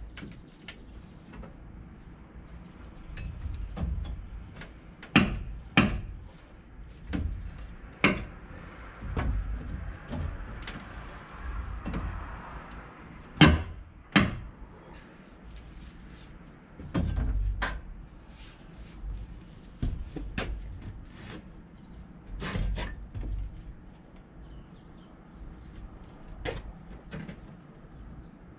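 Hand tools knocking and scraping against wood and debris during manual demolition of a timber house frame: a run of sharp, irregular knocks with quieter scraping between.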